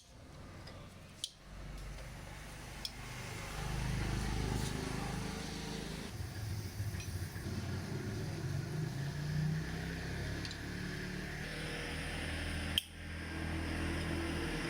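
TVS Metro Plus motorcycle's 110 cc single-cylinder four-stroke engine running steadily, with the rough engine noise that the mechanic puts down mainly to a slack or stretched timing chain. Two short clicks, one about a second in and one near the end.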